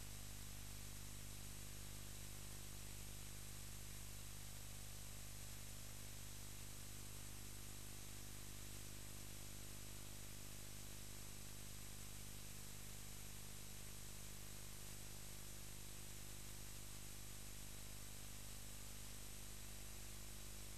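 Steady hiss with a low electrical hum underneath, unchanging throughout, with no other sound.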